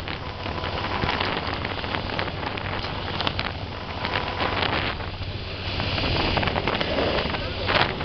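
Motorboat under way at speed: a steady low engine drone beneath the rushing, crackling wash of its wake and spray, with wind buffeting the microphone.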